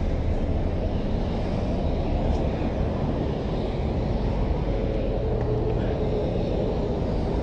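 Steady highway traffic noise with a low wind rumble on the microphone.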